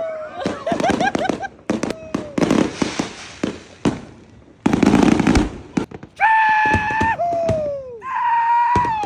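Fireworks going off: repeated sharp bangs and crackling, with several high whistling tones that each hold and then slide down in pitch, two long ones in the second half.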